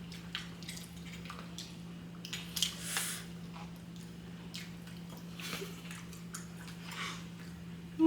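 Eating sounds: soft chewing and wet mouth noises, with a few brief clicks, over a steady low hum.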